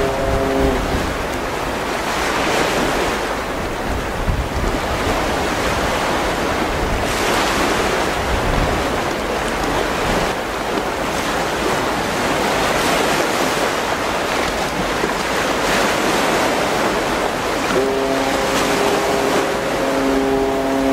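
Wind buffeting the microphone over a choppy sea, with waves washing. The destroyer JS Kongō's ship whistle is blowing a steady tone that stops about a second in, and another long blast starts near the end: an approach warning to nearby fishing boats.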